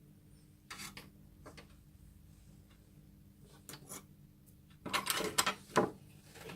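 Short bouts of rubbing and scraping from handling small parts: brief scrapes about a second in and near the middle, then a louder spell of rubbing about five seconds in.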